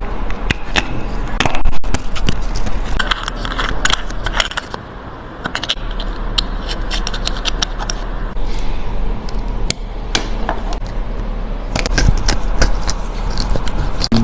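Small metal clicks, taps and scrapes from watchmaking tools and watch parts being handled, in a series of short cuts.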